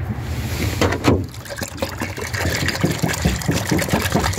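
Water pouring from a plastic jug into a shallow plastic tray waterer, splashing in quick, uneven pulses.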